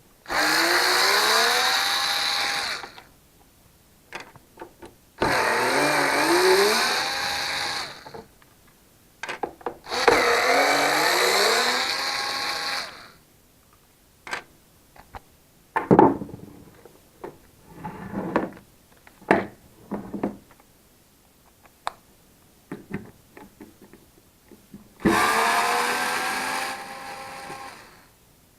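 A small motor runs in four bursts of about three seconds each, rising in pitch as it speeds up and then holding steady. Between the third and fourth bursts come scattered clicks and short knocks of parts being handled.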